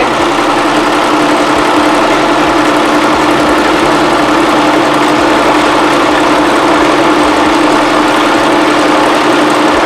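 Singer Promise 2 (1512) electric sewing machine running steadily at speed, zigzag-stitching hair wefts under the presser foot, then cutting off abruptly at the end.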